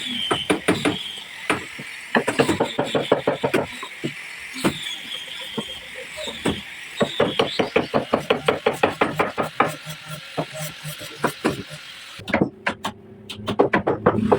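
Rapid runs of hammer knocks on wood, at times about seven blows a second, with a brief pause near the end.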